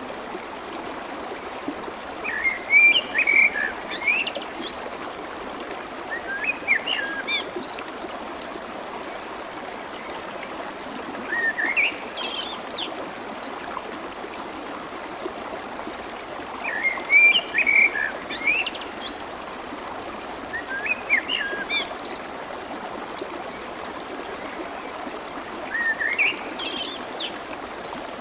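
Clear water flowing and babbling steadily. A small bird chirps over it in short phrases, about six times, roughly every five seconds.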